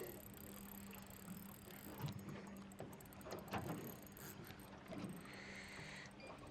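Faint mechanical whirring and ticking of a spinning reel being worked while a hooked trevally is played on light line, over a low steady hum.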